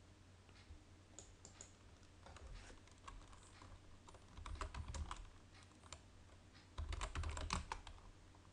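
Typing on a computer keyboard: a few scattered key clicks, then two quick runs of keystrokes about four and seven seconds in, each with a low thud under it.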